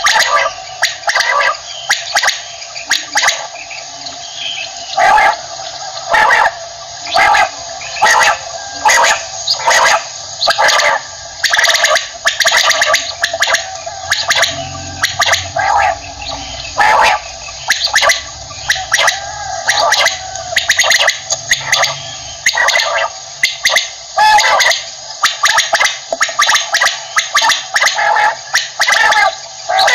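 Common quail calling over and over: short, sharp liquid notes in quick runs, several a second, without a break.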